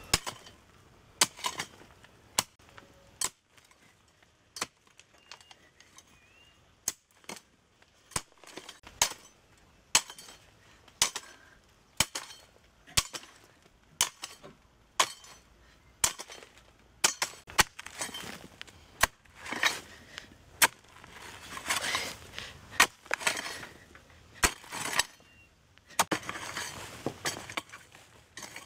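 A hoe chopping into hard red clay soil with sharp strikes about once a second, with the scrape and crumble of loosened earth between strikes, heavier in the second half.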